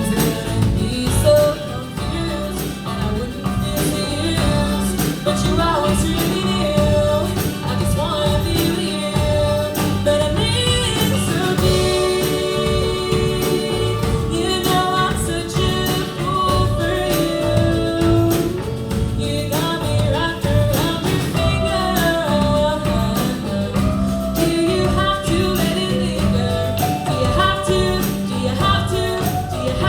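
A song sung with instrumental accompaniment over a steady beat.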